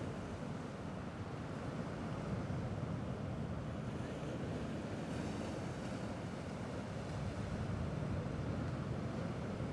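Small sea waves washing steadily against a rocky shore, an even wash with no single break standing out.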